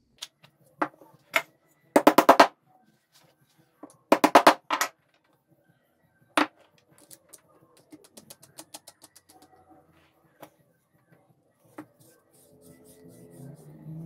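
Clicks and knocks of wooden parts and a bolt being handled while a hinged joint is put together, including two short, rapid rattling runs of clicks and scattered single knocks.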